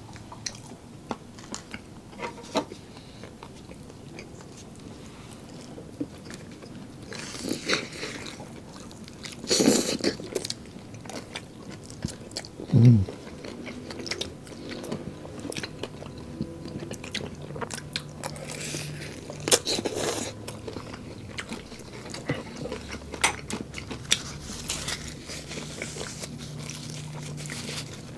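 Close-miked eating sounds: crispy fried chicken being bitten and chewed, with a few crunches and smacks louder than the rest.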